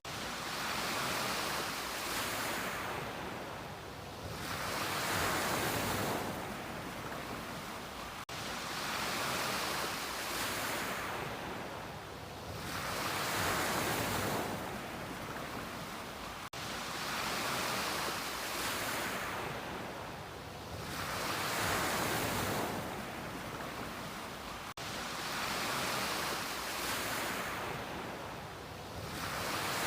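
Ocean surf: waves breaking and washing up the beach, swelling and fading about every four seconds over a steady hiss.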